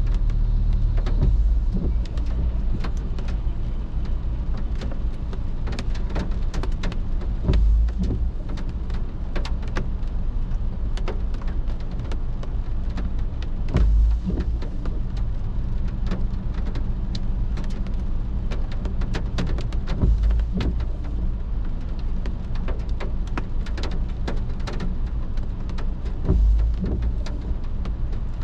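Rain drops ticking on a car's windshield and roof, heard from inside the car, over the low steady hum of the idling car. A heavier low thump comes about every six seconds.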